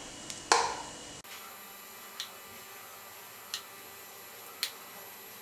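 Spoon clicking against an appe pan while batter is spooned into its cavities: one sharp click about half a second in, then a few faint ticks spaced a second or so apart over a low hiss.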